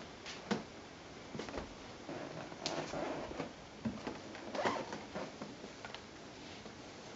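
Ragdoll cat biting, clawing and kicking at a small red catnip toy on a coir doormat: faint, irregular rustling and scuffing, busiest in the middle.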